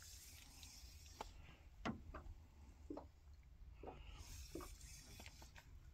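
Near silence, with a low rumble and half a dozen faint, irregular ticks and taps.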